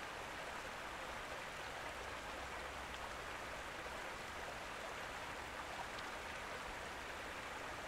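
Running water flowing steadily, a soft even rush without breaks.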